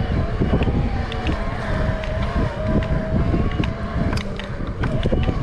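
Motorcycle engine running at riding speed, with a steady drone that wavers slightly in pitch, and wind buffeting the microphone.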